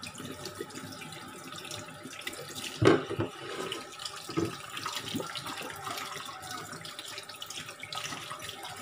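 Tap water running into a stainless steel sink as peeled cassava roots are rinsed under it by hand. There is a sharp knock about three seconds in and a smaller one about a second and a half later.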